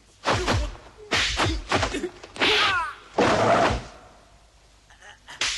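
Martial-arts film fight sound effects: a rapid run of heavy punch and kick blows, about five in the first four seconds, then one more sharp hit near the end.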